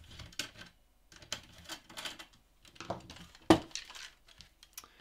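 Screwdriver removing a Torx T15 screw from a function generator's metal chassis, followed by the chassis being lifted and handled: irregular metallic clicks and clinks, with a sharp knock about three and a half seconds in.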